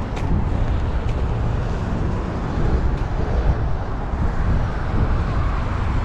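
Steady city street traffic noise: cars passing, with tyre and engine noise blending together.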